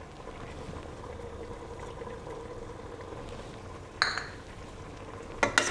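Beef simmering in oil and its own juices in a pot, a low steady sizzle and bubbling, with one short clink about four seconds in.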